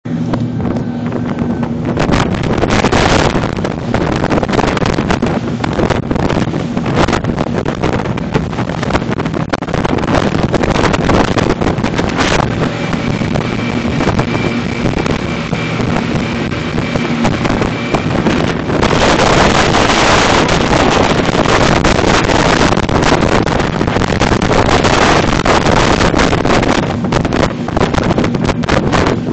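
A RIB's engine running steadily at speed, half buried under heavy wind buffeting on the phone microphone, which gets stronger for a few seconds about two-thirds of the way through.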